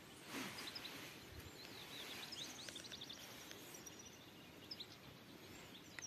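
Faint chirps and a short twittering trill from small birds over a quiet outdoor background hiss.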